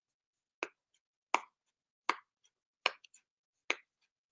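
Fingernails picking at the tape sealing a small box: five sharp clicks, a little under a second apart.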